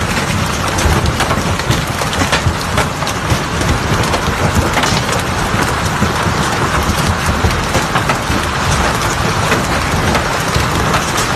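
Heavy hail pelting hard surfaces: a dense, steady clatter made of countless sharp individual stone strikes.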